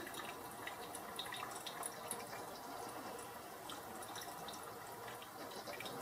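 Mr. Coffee 12-cup programmable drip coffee maker brewing, hot water dripping into the glass carafe as a steady hiss with many small scattered drip ticks. It is running its first cycle with plain water to clean it out.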